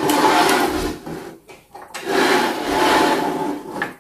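Plastic Sylvanian Families Country Doctor toy building scraping across a wooden tabletop as it is turned and shifted, in two long scrapes with a short pause between them.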